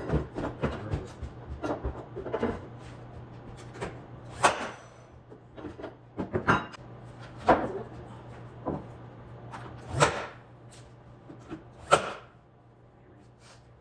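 Irregular knocks and clunks of wood being handled, a few seconds apart, with quick clicking in the first second or so and a steady low hum underneath.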